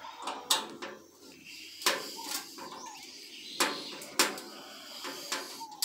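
Screwdriver turning a stiff screw on a sheet-steel PC case: a handful of sharp metallic clicks at uneven intervals as the tip works and slips in the screw head.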